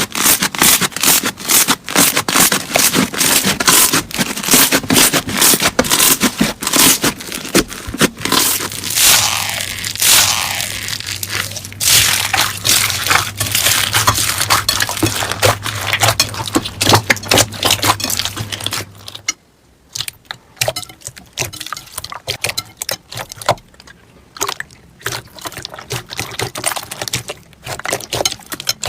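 Slime being squeezed and poked by hand, giving a rapid, dense crackling of small pops and clicks. Near two-thirds of the way through it turns quieter and sparser, and a low hum sits under the louder middle stretch.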